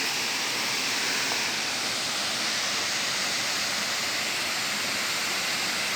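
Waterfall pouring steadily: an even rushing hiss of falling water.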